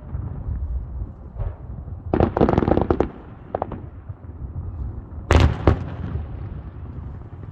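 Fireworks display: a quick volley of crackling bangs about two seconds in, a couple of fainter pops after it, then loud sharp booms a little after five seconds, over a steady low rumble.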